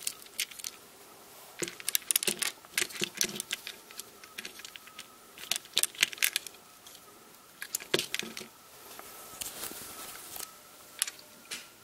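Hard plastic Lego pieces clicking and rattling in scattered clusters as a Ninjago spinner with loose trans-orange whip pieces is turned over in the hands and set down on a Lego baseplate.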